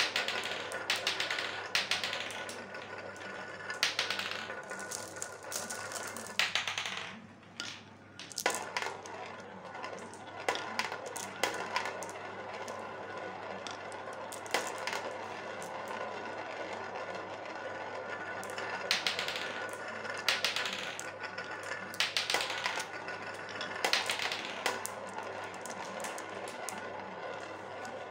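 Glass marbles rolling round a plastic funnel bowl: a continuous rolling rattle dotted with sharp clicks as marbles knock together and drop through the centre hole, with a brief lull about seven seconds in.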